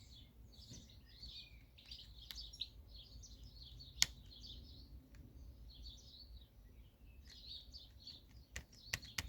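Birds chirping and singing in the background. There is a sharp click about four seconds in and a few more clicks near the end.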